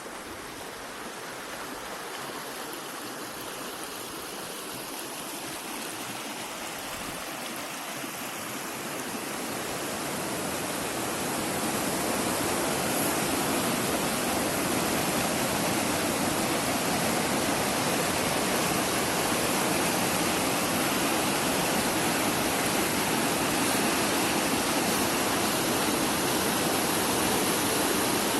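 Rushing water of a waterfall and small river, a steady rush that grows louder about ten seconds in and then holds level.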